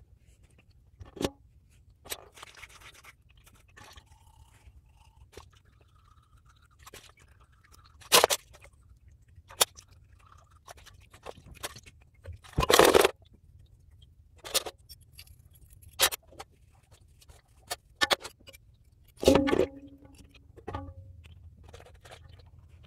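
EGR valve and its metal pipes being washed by hand in a metal basin of diesel: irregular knocks and clinks of metal on metal, with brief sloshes of the diesel, the loudest about 13 s in and again about 19 s in.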